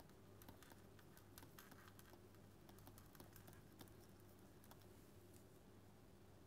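Near silence: faint, irregular light ticks of a pen stylus tapping and scraping on a tablet screen during handwriting, over a low steady room hum.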